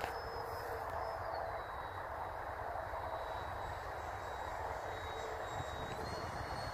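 Electric ducted fan of a Freewing F-22 RC jet in flight: a steady rushing with a thin high whine over it. The whine drops in pitch about a second and a half in and climbs back near the end.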